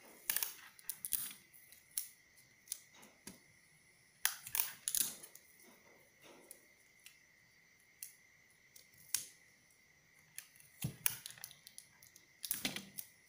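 Paper rustling and crackling in irregular bursts as slashed paper pattern strips for a gathered sleeve are spread and pressed down onto a backing sheet, with a faint steady high whine underneath.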